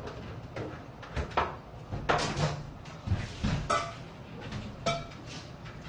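A series of knocks and clatter of dishes and utensils being handled, the loudest about two seconds in; two of the knocks, around four and five seconds in, ring briefly.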